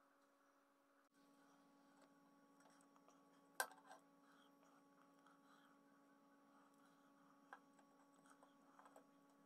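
Near silence: a faint steady electrical hum, with one sharp click about three and a half seconds in and a lighter click near the end.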